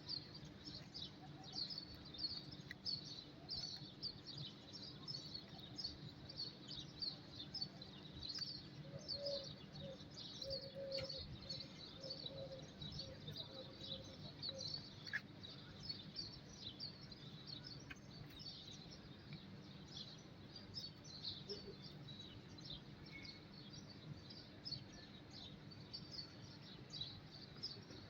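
Small birds chirping rapidly and continuously in high, short notes over a steady low background hum, with a brief run of lower, evenly spaced notes from about nine to fifteen seconds in.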